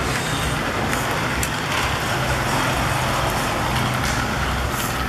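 Small battery-powered toy train running around a plastic track, its electric motor whirring steadily, with a few clicks from the wheels on the track.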